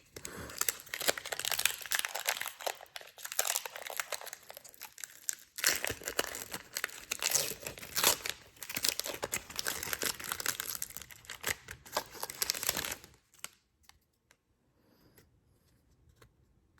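Foil wrapper of a Pokémon booster pack crinkling and tearing as it is opened by hand, busy and continuous for about thirteen seconds, then stopping and leaving only a few faint ticks.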